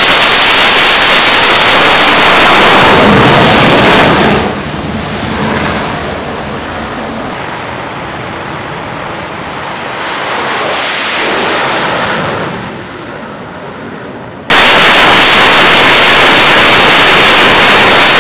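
F/A-18 fighter jet engines at full power for a catapult launch, a loud, steady rush of noise. After about four seconds it drops to quieter jet noise that swells and fades, then the full-power noise of another launch cuts in suddenly near the end.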